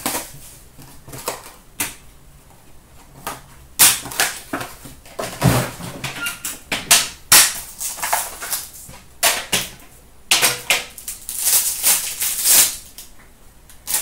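Metal trading-card tin being handled and opened, with a series of sharp clicks and knocks from the tin and its lid. Near the end comes a longer crinkling rustle as the foil wrapper of the card pack inside is handled and torn open.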